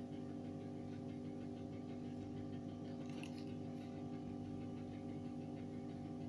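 A steady, faint electrical hum with a few faint ticks around the middle.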